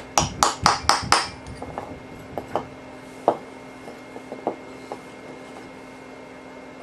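Hammer striking a steel punch against an old rivet head on an AK front trunnion, squashing the rivet's edges in: a quick run of about five sharp metallic strikes in the first second or so, then a few lighter, spaced-out taps.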